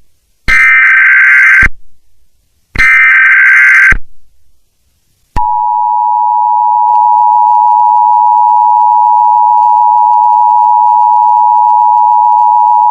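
Emergency Alert System alarm: two bursts of SAME digital header data, each about a second long, then after a short gap the steady EAS two-tone attention signal, which marks the start of a new alert.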